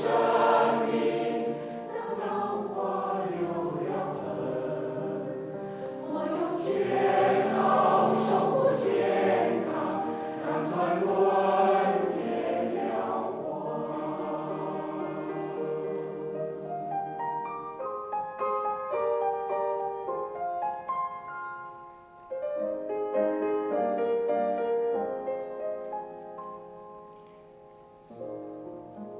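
A choir singing with accompaniment; about halfway through the voices stop and a piano carries on alone with a slow melodic passage.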